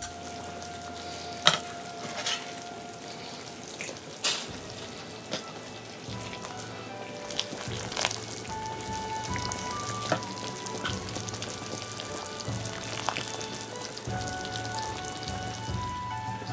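Pork-rib bak kut teh broth boiling in a stainless steel electric pot: a steady bubbling and spitting with a few sharp pops.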